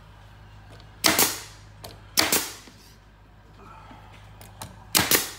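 Air-powered brad nailer firing three times, driving brads through a thin board into wood. The first two shots come about a second apart, and the third comes near the end.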